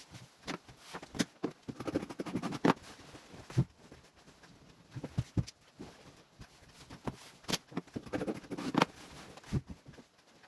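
Irregular taps, knocks and rustling from cloth and tools being handled, with two denser bouts of rustling, at about two and eight seconds in. No cutting-machine motor is running.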